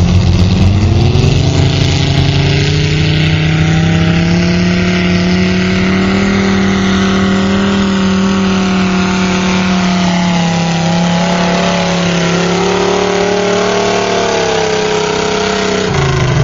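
Three-engine modified garden tractor pulling a weight sled at full throttle. The engines climb in pitch over the first couple of seconds, then hold high and steady under load, and ease off slightly near the end.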